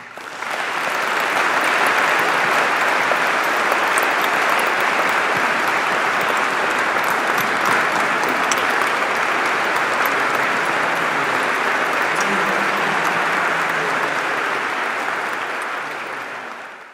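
Audience applauding steadily, building up over the first couple of seconds and fading away near the end.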